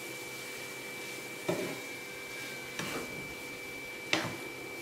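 Wooden spatula stirring grated coconut and sugar in a nonstick pan, knocking and scraping on the pan three times about a second and a half apart, over a steady background hiss.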